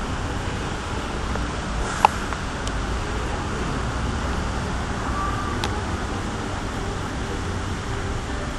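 Steady outdoor background noise with a low rumble, and one sharp click about two seconds in.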